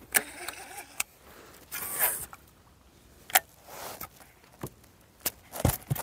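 Scattered sharp clicks and knocks from fishing tackle being worked on a kayak, with a short rushing scrape about two seconds in.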